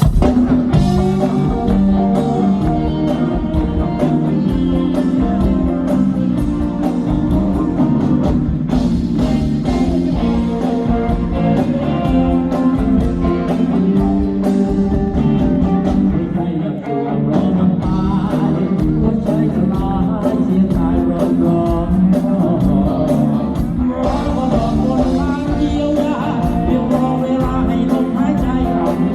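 Thai rock band playing a song live on stage, with electric guitars, bass and drums keeping a steady beat, and a singer.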